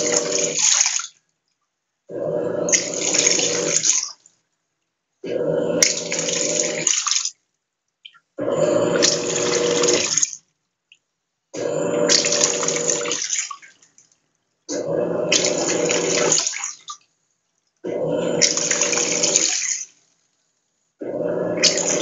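Electrolux LTE06 top-loading washing machine agitating laundry during the wash stage. The agitator motor hums and the soapy water churns in bursts of about two seconds, pausing for about a second between them, about seven times in steady rhythm.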